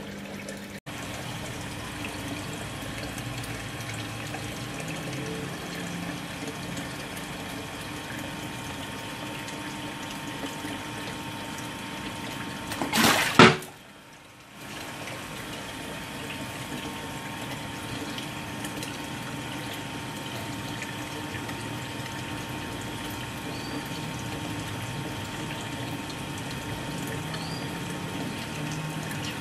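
Aquarium filter or pump running, its water splashing steadily into the tank surface, with a faint steady hum. About halfway through there is one brief loud handling noise, and the water sound drops for about a second.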